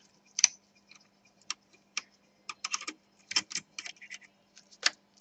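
Irregular light clicks and taps of laptop plastic and board parts being handled, as the power jack is worked free along with the motherboard.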